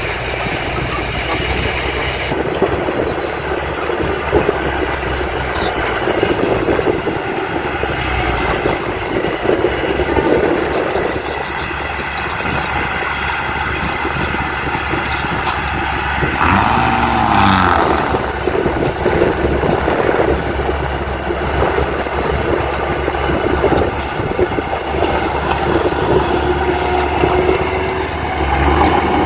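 Diesel engines of heavy earthmoving machinery running steadily. About two-thirds of the way through, a short pitched sound rises and falls.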